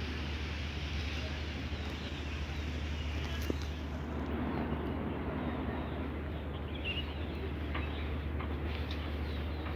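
Steady outdoor background noise, hiss with a low rumble, and a faint bird chirp about seven seconds in.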